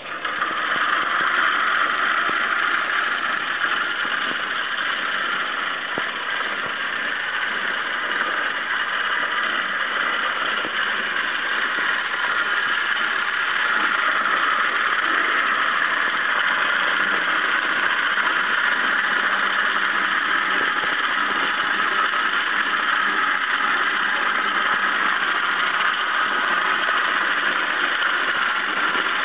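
Electric drive motor of a homemade electric mini tractor conversion running, a steady whir that holds at an even level throughout.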